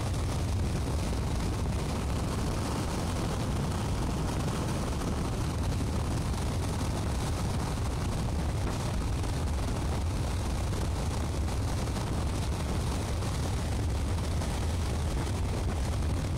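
Strong wind buffeting the microphone: a steady low rumble with a hiss above it.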